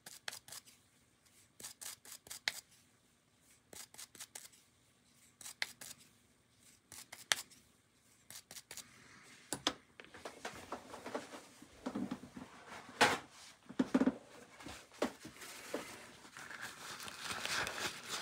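Small brush scrubbing old grease off the tiny metal gear on an HO model locomotive axle: quick runs of scratchy strokes every second or two. From about ten seconds in, paper towel crinkling and rubbing as the axle is wiped, with a few knocks.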